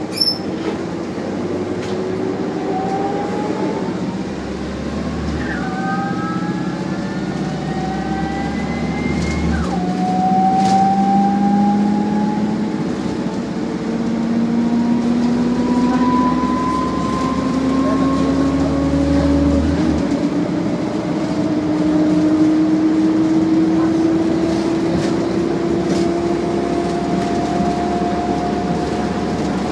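Optare Solo bus heard from on board, its diesel engine and drivetrain whine rising in pitch as the bus gathers speed. The pitch drops back at gear changes about five and nine seconds in, then climbs slowly and steadily for the rest of the stretch. There is a short sharp clack right at the start.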